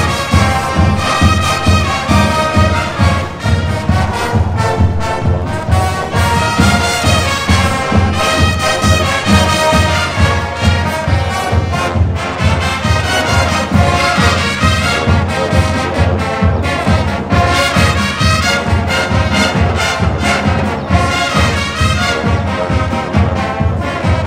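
Marching band playing: brass over a drumline keeping a steady beat.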